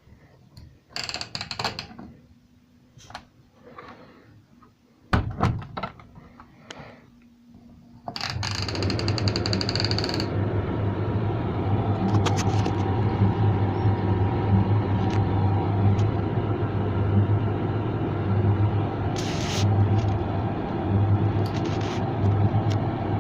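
Creda 37762G tumble dryer: a few knocks and one loud thunk as the door is shut, then about eight seconds in the motor starts and the dryer runs with a steady hum and drum rumble. Rapid clicking for the first two seconds after it starts.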